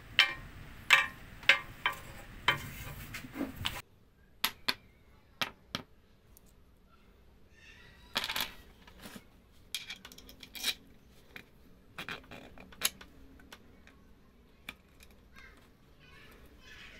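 Wooden wheel rims clicking and knocking as they are handled, stacked and set down on a hard surface: a dozen or so sharp, separate taps. A low hum runs behind the first few seconds and stops abruptly.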